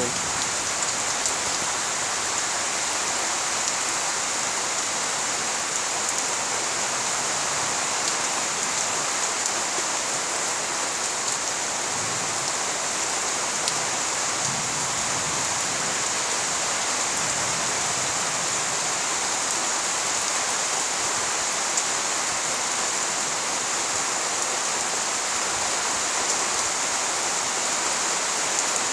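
Steady rain falling on leaves, grass and standing water: an even, unbroken hiss.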